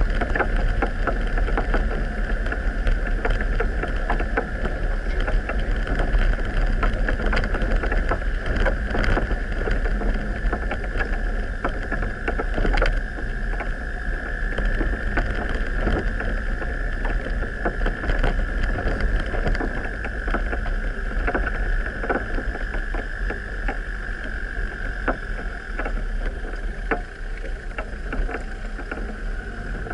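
Off-road vehicle driving slowly over a rutted, muddy forest track: a steady low engine rumble with a steady high whine over it, and frequent knocks and rattles as it goes over bumps.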